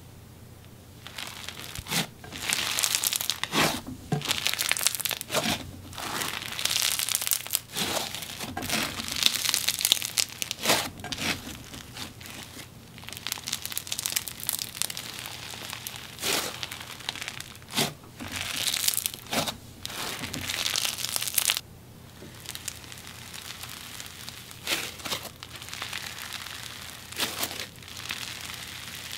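Snow fizz slime, a slime loaded with fake plastic snow, being squeezed and kneaded by hand. It gives a crisp crackling squish in repeated squeezes of a second or two each, with short pauses between.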